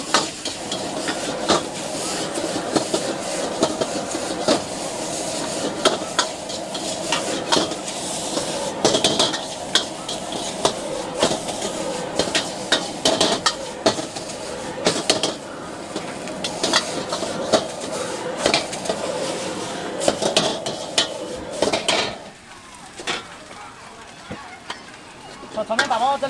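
Metal ladle clanking and scraping against a wok as noodles are stir-fried, with a steady sizzle of frying underneath. The sizzle and clatter drop away suddenly about 22 seconds in, and a few clanks come back near the end.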